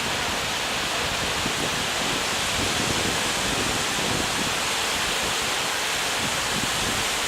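Steady rushing noise of sea surf on the beach, even and unbroken.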